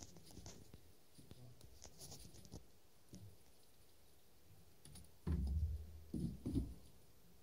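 Faint scratching and clicking of a phone being handled as it moves in the dark. About five seconds in come a few louder, muffled low thumps.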